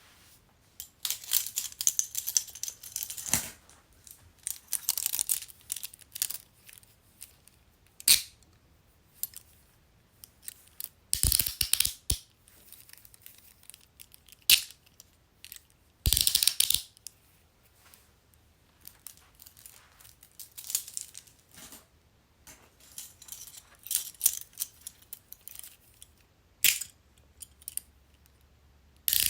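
Metal handcuffs being handled: chains and cuffs jingling and rattling, with repeated sharp clicks of the ratchet and pawl as the cuffs are worked, coming in separate bursts several seconds apart.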